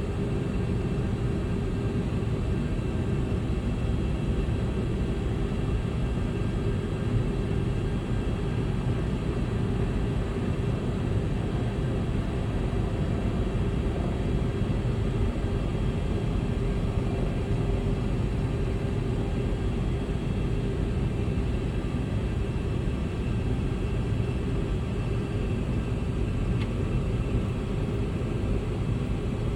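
Aircraft engine and airflow noise during a landing: a steady low rumble with faint steady tones above it, unchanging throughout.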